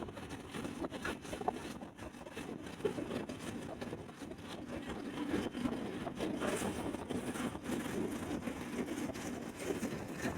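Road traffic noise, a steady rumbling hiss of vehicles on the move with wind on the microphone; no horn melody stands out.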